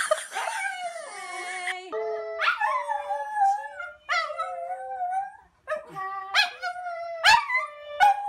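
Dogs howling: a string of long, wavering howls, each rising sharply at its start, with short gaps between them.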